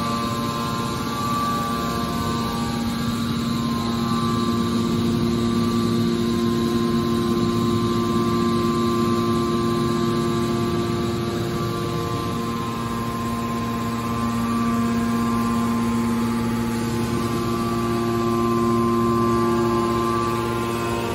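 Electric motor and hydraulic pump of a scrap-metal baler press running with a steady hum; the hum's note shifts briefly about twelve seconds in.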